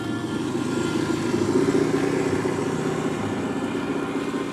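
Radio-controlled scale crawler truck's electric motor and geartrain running steadily.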